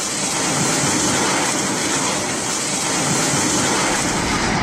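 Landslide: rock and soil pouring down a hillside, a steady loud rushing noise.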